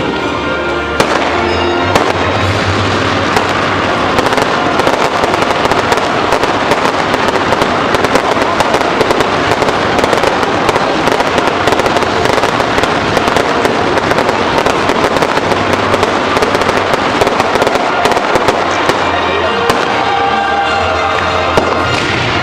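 Fireworks bursting and crackling in a dense, continuous barrage of rapid bangs and crackles that starts about a second in, with music playing underneath.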